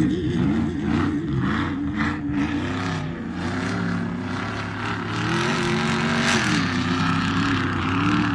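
Off-road race truck engine running hard, its revs rising and falling again and again, with a louder stretch about six seconds in.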